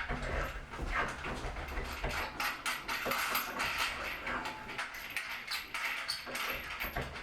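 Irregular clicks, knocks and rubbing of wooden Newcomb studio loom parts being handled and worked loose during disassembly.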